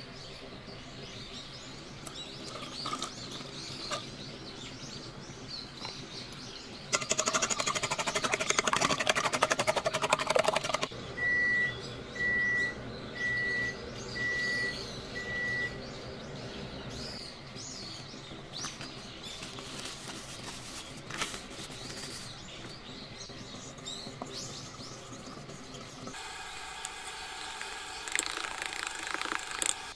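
A fork clattering fast against a stainless-steel bowl for about four seconds, then five short, evenly spaced electronic beeps. Near the end the fork scrapes round the bowl again, stirring dry cake mix into the beaten eggs and milk.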